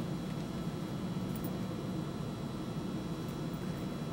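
Steady low hum with a light hiss: background room tone, with no distinct event standing out.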